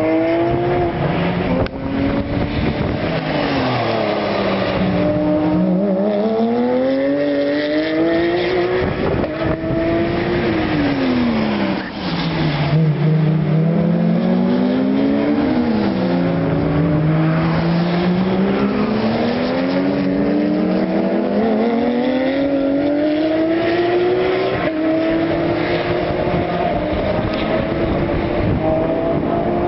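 Porsche 911 race cars' flat-six engines lapping the circuit: the engine pitch climbs through the gears, then drops on braking and downshifts, over and over. Often more than one car is heard at once, their engine notes crossing.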